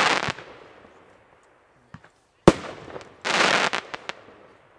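Consumer compound fireworks cake firing: a crackle from the previous shell fades at first, then a dull launch thump about two seconds in, a sharp burst bang half a second later, and a dense crackle of the stars that dies away near the end.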